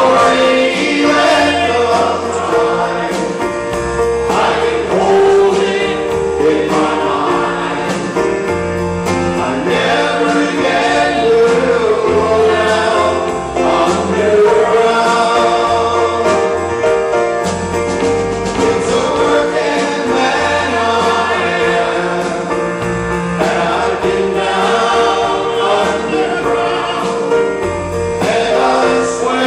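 Male choir singing with a lead vocalist, backed by a live band with electric guitar and keyboard.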